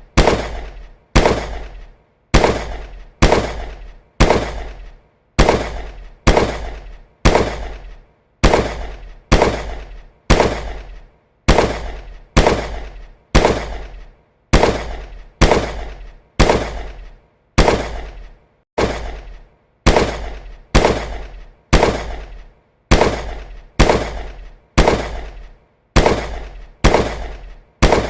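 Gunshot sound effect fired as single shots in a steady series, about one and a half a second, each shot with a short echoing tail that is cut off before the next.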